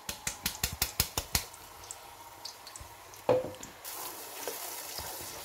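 A quick run of about ten light taps at a stainless steel pot, then a single knock a couple of seconds later. Near the end the tomato purée starts sizzling in the hot oil as it is stirred with a wooden spoon.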